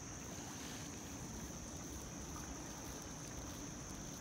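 Faint, steady outdoor background hiss with a constant thin, high-pitched tone over it; no distinct event stands out.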